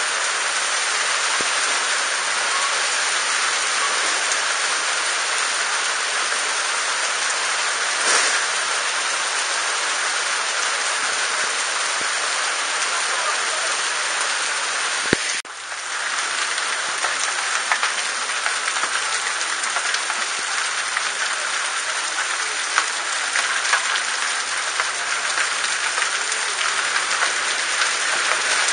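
Heavy rain falling steadily on awnings and the wet street, an even hiss. About halfway through there is a single sharp click, after which the level briefly drops.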